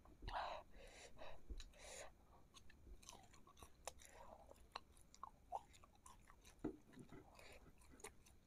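Quiet, close-miked chewing of a mouthful of fried meatballs in sticky hot sauce: soft mouth sounds with many small clicks, a little louder about the first second.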